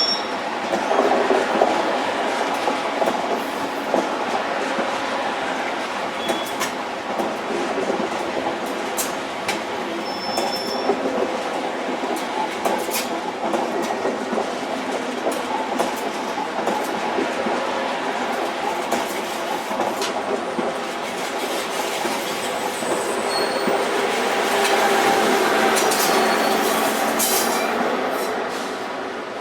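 Rail vehicle running along the track: a steady rumble with clicks from the wheels and a few short, high wheel squeals, growing louder for a few seconds near the end.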